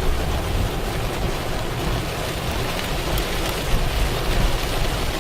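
Heavy rain pouring down in a steady hiss, with a low rumble underneath.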